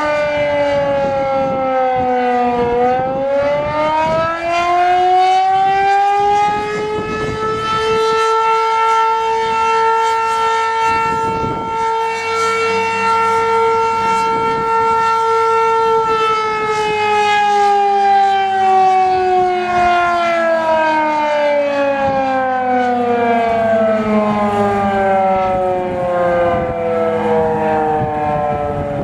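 Federal Signal Model 5 eight-port outdoor warning siren sounding its attack signal for a test. The pitch dips, climbs again over about three seconds, holds steady for about ten seconds, then slowly winds down through the rest.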